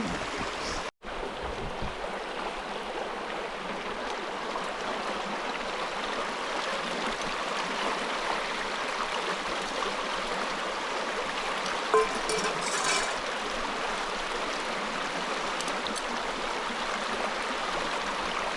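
Steady rushing of flowing water, with a brief knock about twelve seconds in. The sound drops out for an instant about a second in.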